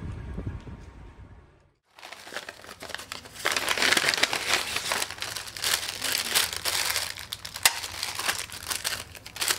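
Paper crinkling and rustling with many sharp crackles as a paper pharmacy envelope is opened and medicine sachets are pulled out, loudest a couple of seconds after it starts. Before that, about the first second and a half is wind on the microphone, followed by a brief gap.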